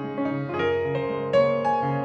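Soft instrumental background music on piano: a slow melody of single struck notes over held chords, a new note about every half second.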